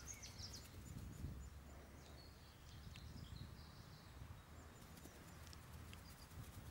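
Near-silent woodland ambience at dusk: a faint, steady low rumble with a few faint, short bird chirps.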